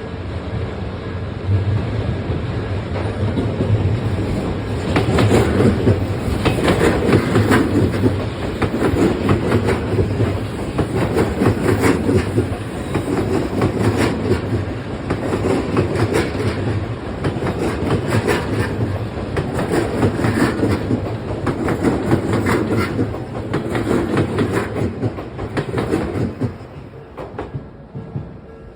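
An Odakyu Line train passing close by on the track at a level crossing, its wheels clacking over the rail joints in a regular rhythm about every second or so. The sound fades away near the end.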